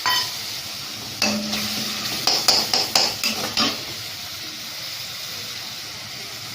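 Onions and tomatoes with just-added ginger-garlic paste sizzling in oil in a kadai. A metal spoon stirs and scrapes against the pan, with a run of sharp clinks between about one and four seconds in.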